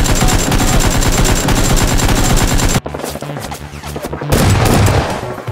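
Rapid automatic gunfire sound effect, a dense stream of shots that stops abruptly about three seconds in, followed by a low boom about a second and a half later.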